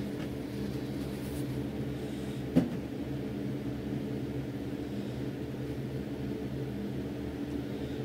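A steady low mechanical hum of several even tones, with one short knock about two and a half seconds in.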